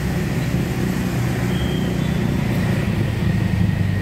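Steady low rumble of road traffic along a city street, with a faint thin whine running through it and a brief high tone about a second and a half in.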